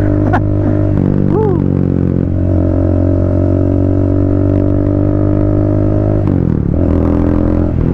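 Triumph Speed 400's single-cylinder engine running under way, a steady engine note that steps to a new pitch a few times, dipping about six seconds in.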